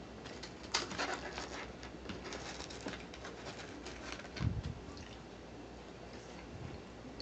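Crisp potato chips crackling and crunching as they are picked up and eaten, a quick run of sharp crackles for a couple of seconds, then sparser. A low thump about four and a half seconds in.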